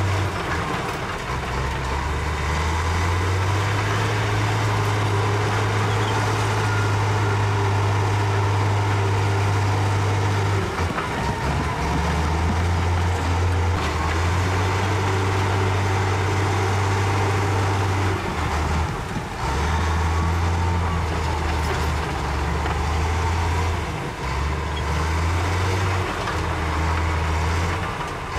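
Heavy diesel engines of a Komatsu D65E bulldozer and a loaded dump truck running under load, the engine note stepping up and down as the machines work.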